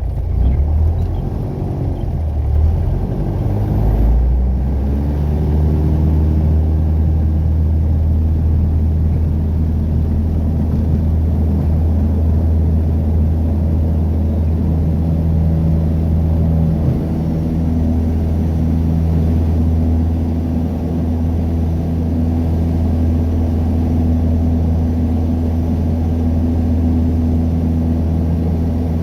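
Piper PA-28 light aircraft's piston engine running with a steady low drone; its pitch shifts over the first few seconds, then holds steady.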